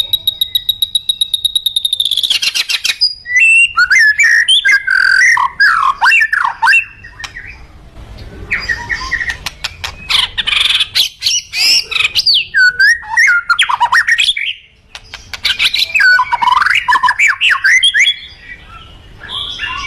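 White-rumped shama singing at full strength: a fast run of rapidly repeated ticking notes, then three long bursts of varied whistles and warbled phrases with short pauses between them.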